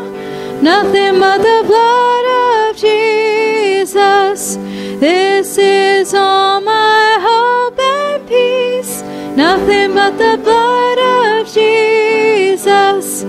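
A hymn being sung over held instrumental chords, the sung melody moving from note to note in phrases.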